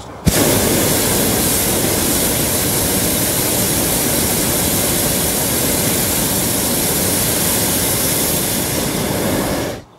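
Hot air balloon's propane burner firing in one long, loud, steady burn, switched on with a click just after the start and cut off suddenly near the end.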